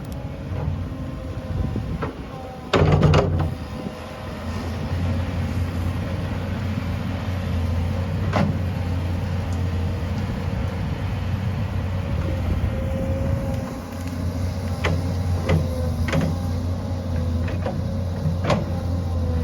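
A tractor's diesel engine running steadily with a low hum. Several sharp knocks or clunks come through it: a loud one about three seconds in, and a cluster near the end.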